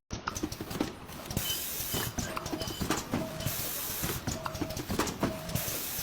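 Machinery running with irregular clicks and knocks, and a short mid-pitched tone recurring about once a second.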